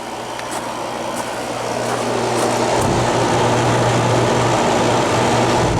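1993 Kenmore 6,000 BTU window air conditioner running, its rotary compressor humming steadily under a strong rush of air from the fan blowing out the back of the unit. The sound grows louder over the first couple of seconds, then holds steady.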